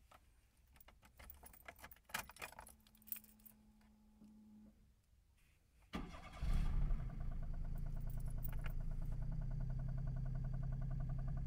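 Keys jangling and clicking in the ignition with a brief steady hum, then about six seconds in the Daihatsu EF-RL three-cylinder DOHC turbo engine cranks, catches and settles into an idle with an even, rhythmic pulsing. Heard from inside the car's cabin, where the owner finds the knocking loud; the owner wonders whether it is a conrod bearing, the crank or the head.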